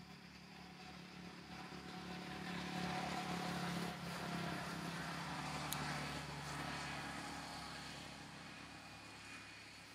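A motor vehicle passing by: a steady engine hum that grows louder, peaks a few seconds in, then fades away.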